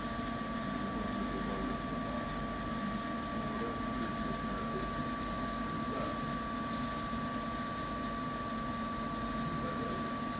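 Steady indoor room tone: a low, even hum with a thin, steady high-pitched whine over it.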